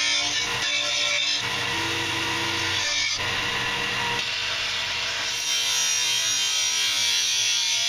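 WEN 6502 belt and disc sander grinding the steel of a cut-out circular saw blade, a continuous rasping noise. About five and a half seconds in it turns higher and hissier.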